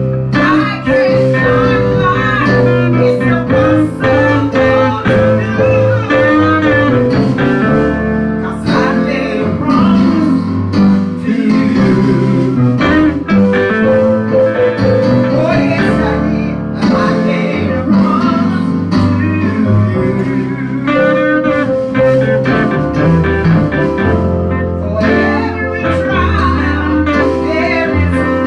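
Live gospel music in a bluesy style, led by guitar, with low bass notes underneath.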